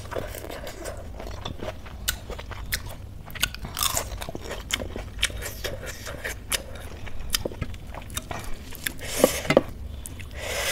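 Close-miked chewing and crunching of a crisp papad (fried lentil wafer): many short crackles and wet mouth clicks, with a louder cluster of crunches near the end.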